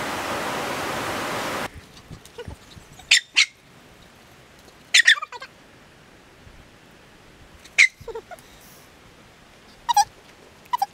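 Waterfall rushing, cut off abruptly less than two seconds in. Then a quiet background broken by about five short, high-pitched animal calls that fall in pitch, one or two at a time, a few seconds apart.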